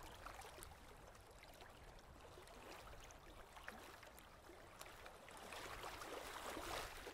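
Near silence: faint outdoor ambience of small waves lapping at the water's edge, with a low steady rumble, swelling slightly near the end.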